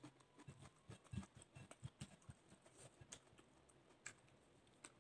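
Faint close-up chewing of a mouthful of rice and omelette: a quick string of small mouth clicks and soft smacks, sparser in the second half.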